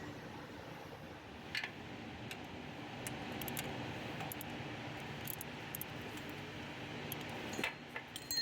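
Steady low mechanical hum, with a few sharp metallic clinks, like hand tools on metal, about a second and a half in and again near the end.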